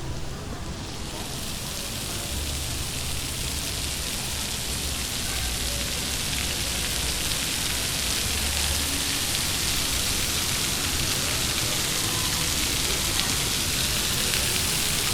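A steady hiss, like spraying or falling water, starting about a second in and stopping near the end, over faint background chatter.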